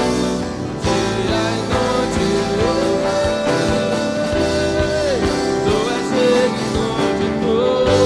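Live worship band music with guitar and drums. A long held melody note slides up, holds, then slides back down in the middle.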